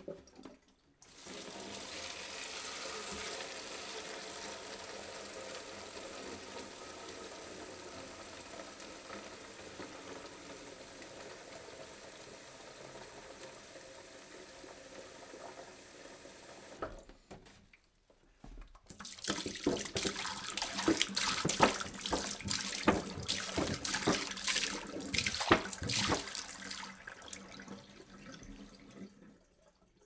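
Water pouring in a steady stream for about fifteen seconds. After a short break, a second, louder and splashier pour with many irregular spatters, fading out near the end.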